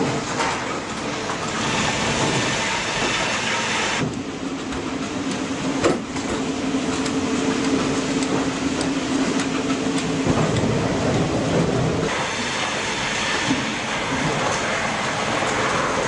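Rail-mounted log-handling crane working in a sawmill log yard: steady mechanical running and clatter of the machine on its rail track and the log conveyor. A steady hum runs from about four seconds to ten, with a sharp clank near six seconds.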